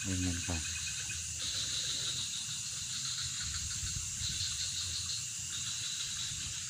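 Night chorus of crickets and other insects: a steady high-pitched hum with patches of rapid trilling that come and go.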